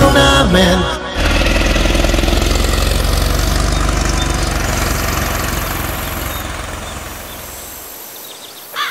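Air-cooled flat-four engine of a 1970s Volkswagen T2 van running as the van drives away, fading steadily into the distance. The song's music cuts off about a second in.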